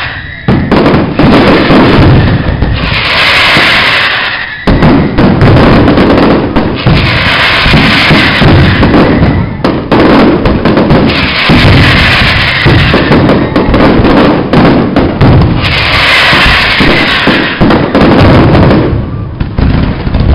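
Fireworks display at full barrage: a dense, continuous run of loud bangs from shells bursting overhead, with waves of crackling every few seconds.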